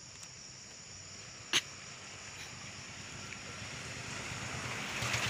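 Motor vehicle approaching on the road, its engine and tyre noise growing steadily louder over the last two seconds. A single sharp click about a second and a half in.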